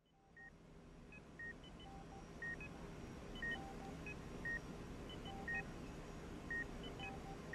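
Hospital patient monitor beeping steadily, a short high beep about once a second with fainter double beeps at other pitches in between, over a low steady hum that fades up from silence at the start.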